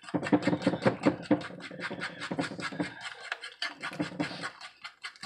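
A fork beating eggs and flour into dumpling dough in a bowl: fast, even strokes of the fork against the bowl, about six a second, with a brief pause about three seconds in.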